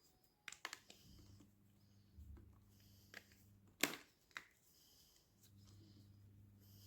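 Gym chalk crunching as it is crushed: a few separate short, sharp crunches, the loudest about four seconds in, over a faint low steady hum.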